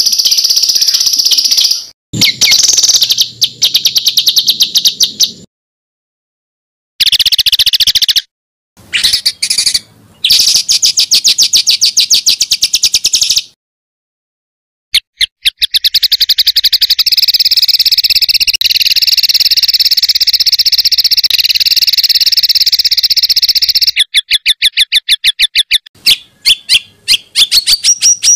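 Songbird singing rapid, dense volleys of sharp repeated notes, the fast rattling 'tembakan' phrases of a masteran recording. The song comes in separate stretches that stop abruptly, with silent gaps of one to two seconds between them.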